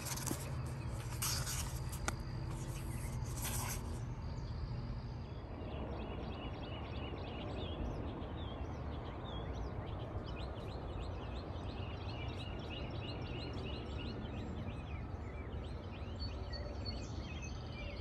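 Many songbirds chirping and singing in a dense chorus of short, quick notes over a steady low rumble. For the first four seconds there are only a low hum and a few sharp clicks, with the birdsong beginning about five seconds in.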